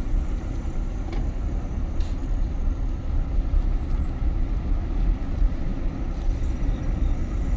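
A car driving at low speed, heard from inside the cabin: a steady low rumble of engine and tyres on the road.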